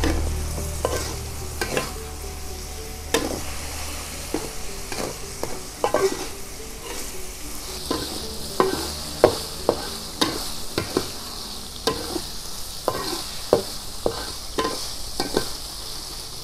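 Metal spatula scraping and knocking against a metal wok while stir-frying shredded tongkol fish with chillies, in irregular strokes about one or two a second. Under the strokes the food sizzles in the oil, growing louder about halfway in.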